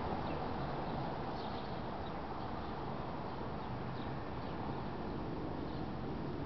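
Steady background hiss of room ambience, with a few faint, short high bird chirps now and then.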